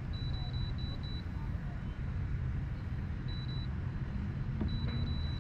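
Minn Kota iPilot trolling motor beeping in short, high, even-pitched beeps. They come in runs of two or three near the start, again about three seconds in, and near the end, as it answers remote-control commands. A steady low rumble runs underneath, and a faint low hum comes in near the end.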